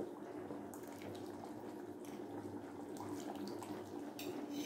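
Rice, water and chicken masala bubbling at a boil in an open aluminium pressure cooker, with scattered small pops over a steady low hum.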